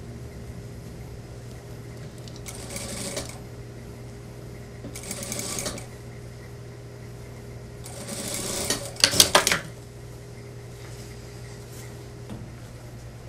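Industrial lockstitch sewing machine stitching a jumper seam in three short runs, the last one the longest and ending in a few loud clacks, over a steady low hum.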